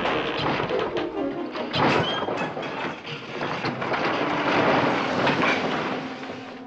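Wooden boards and timbers of a knot-lashed wooden cabin crashing and clattering down as it collapses, with music playing over it.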